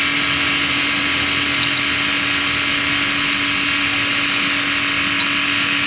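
Steady machine hum under a loud, even hiss that holds constant throughout.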